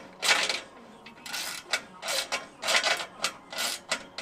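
Ratchet wrench being worked back and forth on a nut, clicking through a run of short strokes, about two a second.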